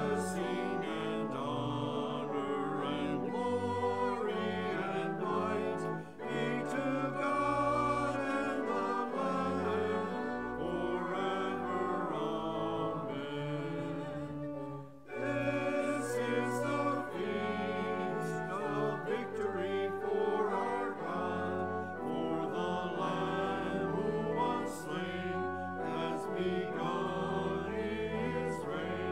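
Choir and congregation singing a hymn with pipe organ accompaniment, with held low organ notes underneath. There is a short break about halfway through, and then the refrain begins.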